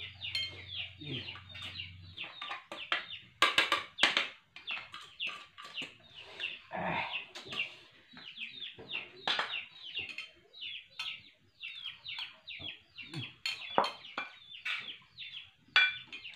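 Chickens clucking, a steady run of short, high calls each falling in pitch and following one another several times a second. A few sharp clicks fall among them.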